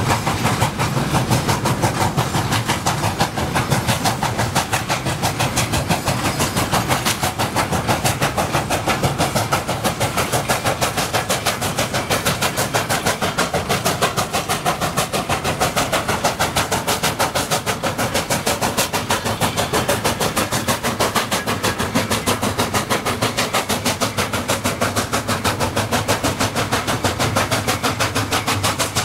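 Steam locomotive working away with a train, its exhaust chuffing in a fast, steady rhythm of sharp beats.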